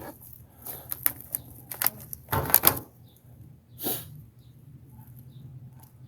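Crackling and rustling of a plastic seedling cell pack and soil as onion seedlings are pulled out and teased apart by hand, with the loudest rustle about two and a half seconds in and another short one near four seconds.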